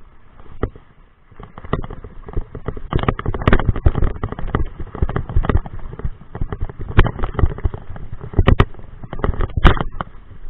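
Mountain bike rattling and clattering as it rolls down a trail of loose rocks, a dense run of irregular knocks and jolts with a few sharp, heavy hits near the end.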